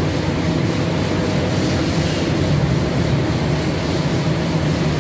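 Steady machinery drone with a low, even hum that does not change.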